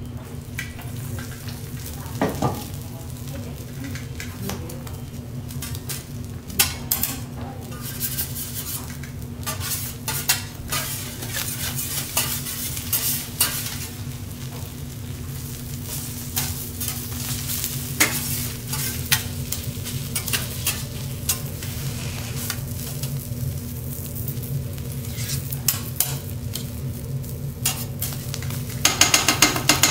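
Egg sizzling on a hot steel teppanyaki griddle while metal spatulas scrape and clack against the plate, over a steady low hum. Near the end the spatulas break into a fast, dense clatter as they chop the egg.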